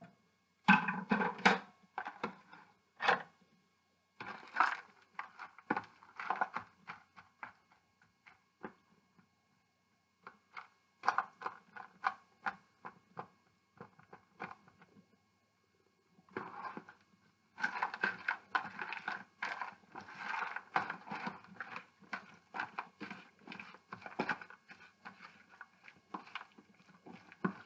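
A spoon mixing diced tomatoes, olives and capers in a bowl: irregular scraping and clicking against the bowl, with short pauses about ten and fifteen seconds in.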